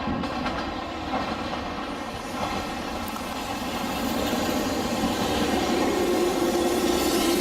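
A 189 series electric train running, a steady hum and rushing noise that grows louder over the second half.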